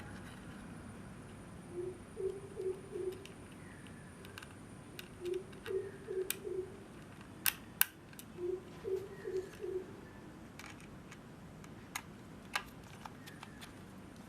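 A dove cooing a short phrase of about four low notes, repeated three times, with a few sharp clicks between and after the phrases.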